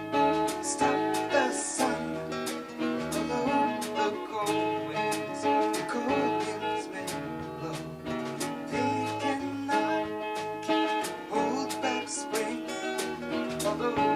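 Live band rehearsal music: strummed acoustic guitar with other instruments, playing in a steady rhythm.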